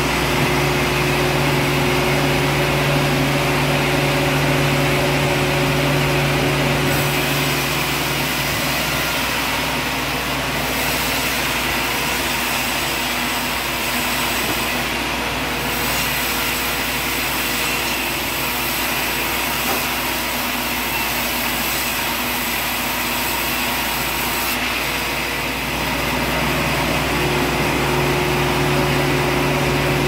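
Large vertical band sawmill running with a steady hum. From about a quarter of the way in until near the end, the blade cuts along a log on the carriage, adding a higher, hissier sawing sound. Then it drops back to the plain running hum.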